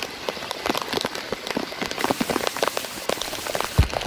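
Heavy rain falling, a dense patter of drops hitting a surface, with two heavier low thuds near the end.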